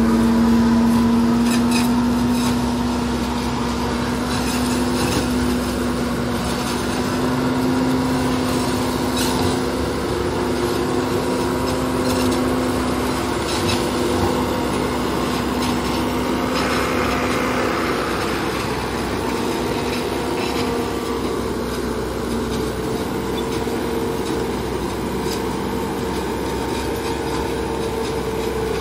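Farm machinery cutting silage: an engine running steadily with a constant droning hum and scattered light clicks.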